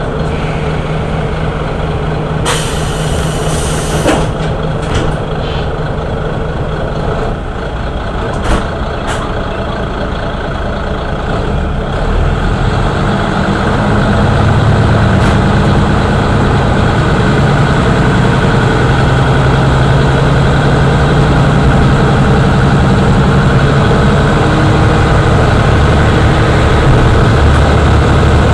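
Kashima Rinkai Railway 6000-series diesel railcar's underfloor vertical engine idling at a station stop, with a burst of air hissing about three seconds in and a few clicks. About twelve seconds in the engine goes to power and its low, heavy running grows louder as the railcar pulls away.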